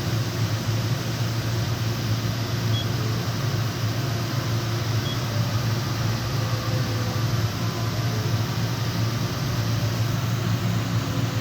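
Steady low hum and fan-like whirr of a powered-up DMG Mori NVX7000/50 CNC vertical machining center standing idle, with two short, faint, high beeps a few seconds in.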